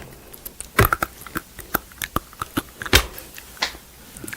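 Seeds being cracked open and nibbled: many small, irregular sharp cracks, with louder ones about a second in and about three seconds in.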